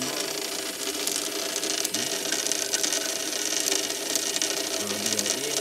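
Reefbot automated aquarium water tester running steadily as it fills its glass test vial: the sound of its small pump and motors at work, with a dense fine ticking over a steady hiss.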